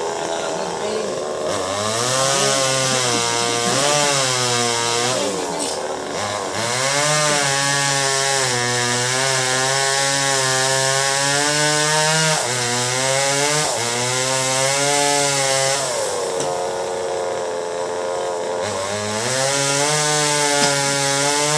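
Chainsaw revved up and cutting melinjo wood, its pitch wavering under load. It eases off briefly twice, drops back to idle about three-quarters through, then revs up again near the end.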